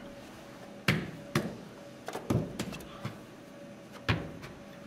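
A handful of sharp knocks and taps at irregular intervals, about six in all, over a faint steady hum.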